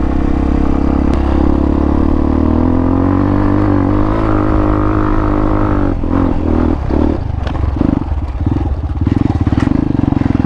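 Hawk 250 dual-sport's single-cylinder engine pulling on a trail, its revs rising and falling. About six seconds in the note turns choppy, cutting in and out with brief clatters, as the bike rides over rough ground.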